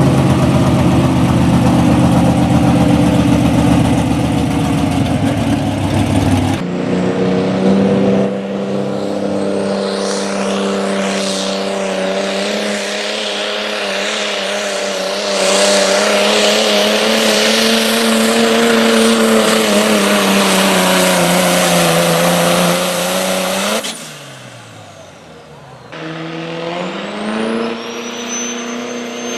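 Diesel pickup trucks at full throttle pulling a weight-transfer sled, among them a Dodge Ram and a Chevrolet Silverado, cut from one truck to the next. The engine note is held high and steady for long stretches, wavering slowly in pitch. After a brief quieter spell near the end, an engine revs up with a rising pitch.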